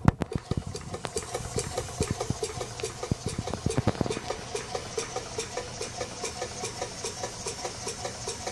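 Homemade miniature twin-cylinder engine running and turning its string-belt pulley drive, with an even mechanical beat of about four pulses a second. Several sharper knocks stand out in the first four seconds.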